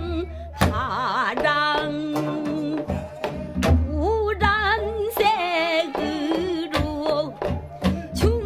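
Pansori singing in jungmori rhythm: a solo voice with a wide, wavering vibrato sings the verse, punctuated by sharp drum strokes, with sustained accompanying instrumental tones underneath.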